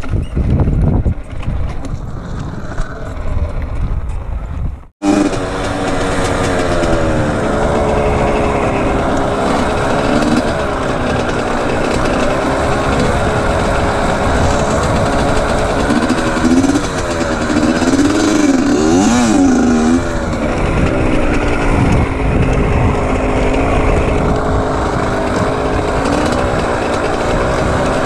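Yamaha YZ85 two-stroke dirt bike engine running while ridden, its pitch rising and falling with the throttle. Before it, for about five seconds, there is a low rumbling noise that cuts off suddenly.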